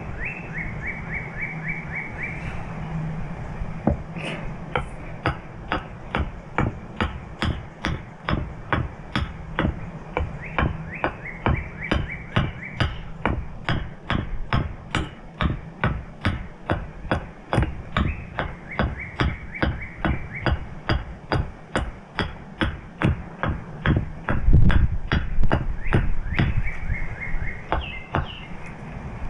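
Steady mallet strikes driving a carving tool into wood, about two a second, with a few heavier knocks near the end. A bird trills several times in the background.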